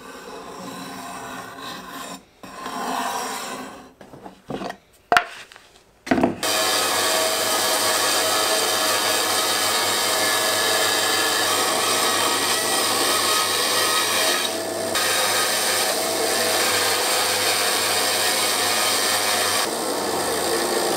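Steel compass point scratching a circle into film-faced plywood in short scrapes. About six seconds in, a bandsaw comes in and runs steadily, cutting the circle out of the plywood.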